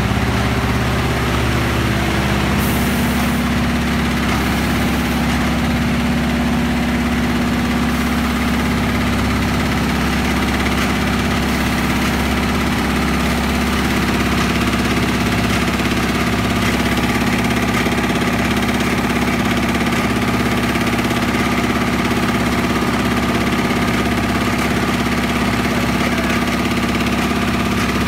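High-speed computerized aari (chain-stitch) embroidery machine running steadily at about 1200 rpm, its needle head stitching zari thread into net fabric: a constant mechanical hum with a steady whine. A low steady tone in the hum grows stronger about two and a half seconds in.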